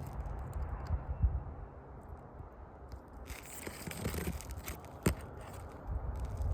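Asphalt roof shingles scraping and rustling as they are handled, with one sharp knock about five seconds in.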